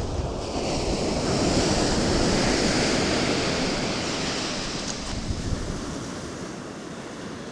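Ocean surf: a wave washing up the beach, the rush swelling over the first couple of seconds and then slowly fading, with wind rumbling on the microphone.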